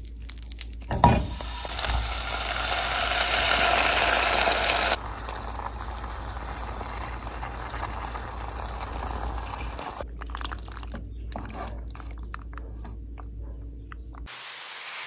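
Cooking at a pan: a knock about a second in, then a steady loud hiss of hot food or water for a few seconds that cuts off suddenly, followed by a quieter hiss with scattered light clicks of a wooden spoon in the pan.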